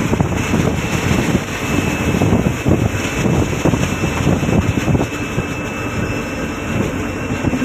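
Wind buffeting the microphone aboard a fishing trawler at sea, over the steady running of the boat's engine.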